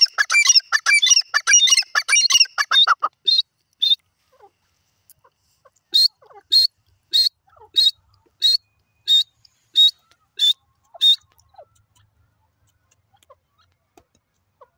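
Grey francolin calling: a few seconds of rapid, harsh chattering notes, then after a pause a series of about nine sharp, high, evenly spaced notes.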